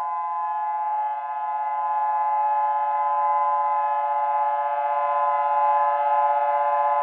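Outdoor tornado warning siren sounding a steady chord of several held tones, slowly getting louder.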